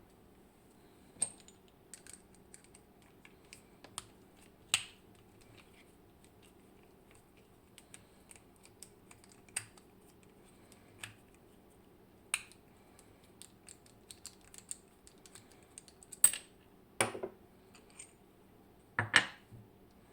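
Scattered small clicks and taps of a Clavis 10 dimple lock and tools being handled as the lock is taken apart, with a few louder knocks near the end.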